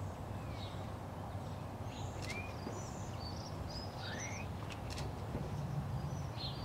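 Outdoor ambience: a steady low background noise with birds chirping now and then, short high chirps scattered through, and a few faint clicks.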